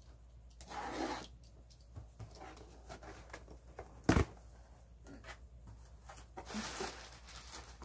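Cardboard box being handled and opened: scraping and rustling of cardboard and packing tape, with one sharp knock about four seconds in.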